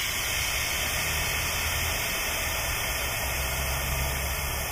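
Air hissing steadily at an air spring's fill valve as an air hose chuck is held on it, over a low steady hum.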